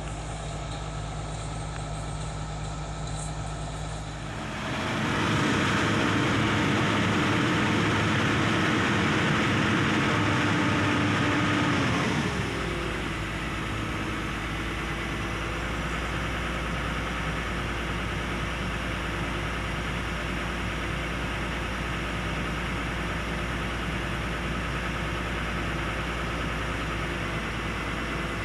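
Komatsu PC200 excavator's diesel engine running steadily, then working louder for about eight seconds from about four seconds in before dropping back with a falling pitch to a steady run.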